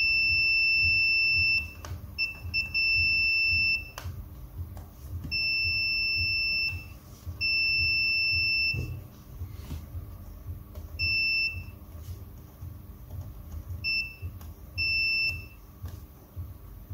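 Digital multimeter's continuity beeper sounding in about eight beeps of uneven length, a steady high tone, some lasting over a second and some only a blip, as the probes touch points on the laptop motherboard. The beep marks a near-zero-resistance path: the GPU power rail reads shorted to ground.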